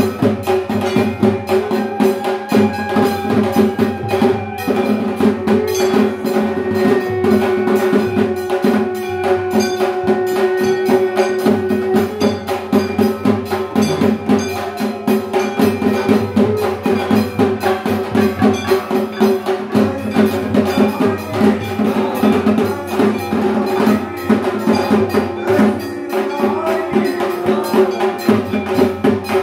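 Bengali dhak drums beaten in a fast, continuous rhythm, with a steady metallic ringing over them.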